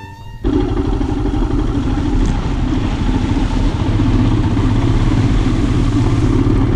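Royal Enfield Himalayan's single-cylinder engine running as the motorcycle rides through a muddy puddle, the front wheel splashing through the water. It comes in suddenly about half a second in.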